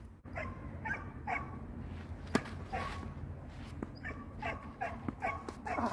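A dog yapping in short, repeated barks, with a single sharp knock a little over two seconds in.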